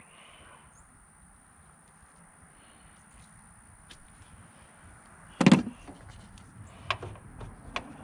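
A single hard clunk about five and a half seconds in, followed by two lighter clicks, amid faint handling noise as wire strippers are put down and hands work at the truck's tail light opening.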